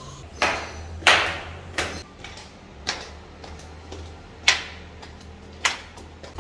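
Footsteps going down concrete stairs in a stairwell: separate sharp knocks about once a second, unevenly spaced, each with a short echo.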